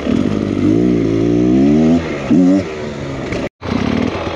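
Two-stroke dirt bike engine, a Beta X Trainer 300, revving up and down with the throttle as it is ridden over rough ground. The sound drops out for an instant about three and a half seconds in, then the engine carries on.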